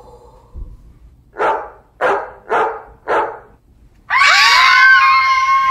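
A dog barks four times, evenly spaced about half a second apart, then gives one long howl.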